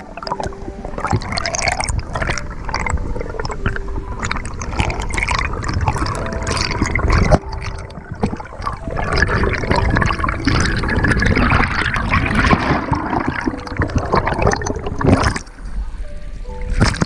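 Underwater gurgling and bubbling close to the camera from a swimming freediver and rising air bubbles, with crackling and small knocks. Near the end the camera breaks the surface into choppy sea water.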